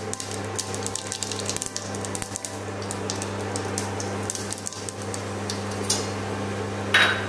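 Cumin seeds crackling and popping in hot oil in a small steel saucepan. The pops are dense for the first few seconds and then thin out. Under them runs the steady hum of an induction cooktop, and there is one brief louder sound near the end.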